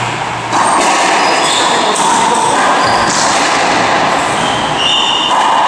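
Racquetball rally: sharp hits of the ball off racquets and walls, and brief high squeaks of court shoes on the hardwood floor. Under them runs a steady loud hiss.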